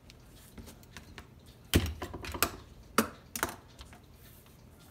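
A quick cluster of sharp clicks and knocks from work at the bench, loudest about two seconds in and again about three seconds in. A clock ticks faintly behind.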